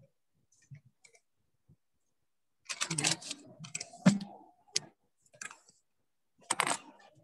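Quick clicking and tapping of keys in several short bursts, with one louder knock just after four seconds in.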